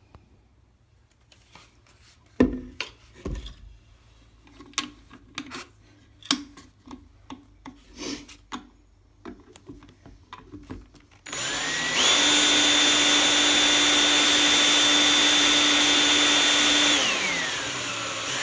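Scattered clicks and knocks of the seat hardware being handled, then a power drill starts about eleven seconds in and runs steadily for about six seconds, driving in a toilet seat mounting screw, before its pitch falls away as it slows near the end.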